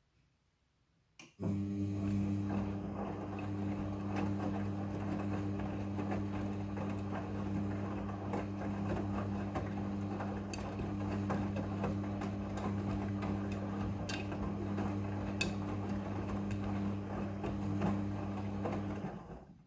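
Midea front-loading washing machine starting up: a click, then a steady electric hum with a rougher churning noise, which stops abruptly after about eighteen seconds.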